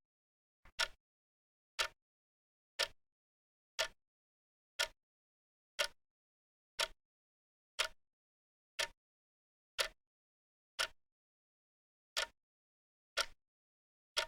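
Clock ticking: one sharp, short tick about every second, with silence between the ticks.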